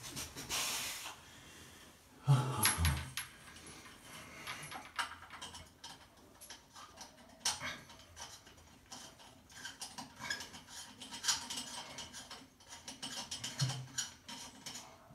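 Small metallic clinks, scrapes and rustling of hands working on a faucet's mounting fittings under a basin, with a heavy thump a little over two seconds in and a smaller one near the end.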